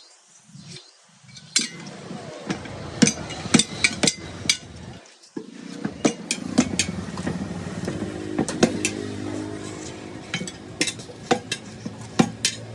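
Irregular sharp metallic clinks and knocks of hand tools striking a steel wheel rim while a tyre is worked off by hand. A steady low hum joins about six seconds in.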